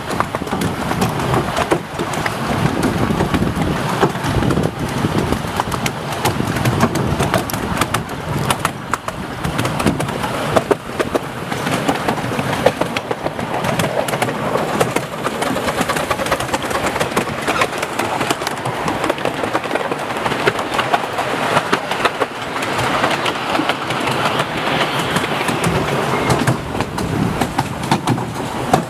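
Miniature steam train heard from its passenger carriage on the move: a steady running rumble with continual clicks and knocks of the small wheels over the rail joints.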